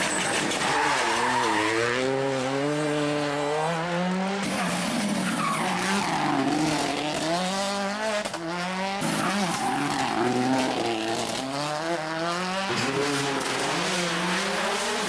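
World Rally Car engine revving hard, its pitch climbing and dropping again and again through gear changes and lifts as the car is driven flat out on a stage. The sound jumps abruptly a few times as separate passes are cut together.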